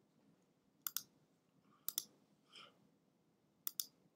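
Three computer mouse clicks, each a quick press-and-release pair. They come about a second in, about two seconds in and near the end, with near silence between.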